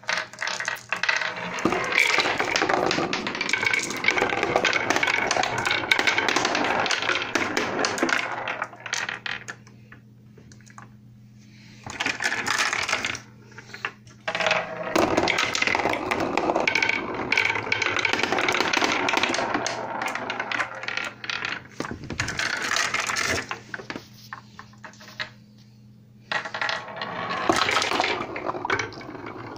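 A marble rolling and clattering down a homemade marble run of wood, cardboard and hardboard, rattling along the tracks and dropping from one to the next. It goes in long runs of dense clicking, with quieter pauses about ten seconds in and again near the end.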